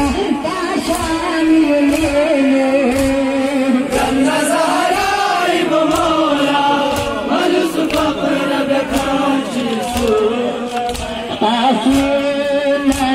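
Crowd of men chanting a Shia mourning lament (noha) in unison, a held melodic line shifting in pitch, over a steady rhythm of sharp slaps from chest-beating (matam) about once a second.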